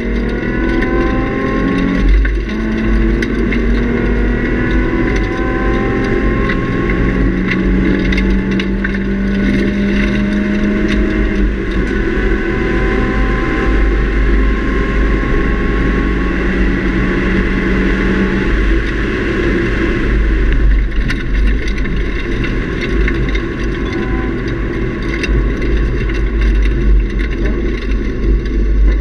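Nissan 350Z's 3.5-litre V6 with a Nismo cat-back exhaust heard from inside the cabin, running hard on a race track. Revs climb, break sharply about two seconds in as a gear is shifted, then the engine pulls at high revs until its note drops away about twenty seconds in, leaving mostly road and wind noise.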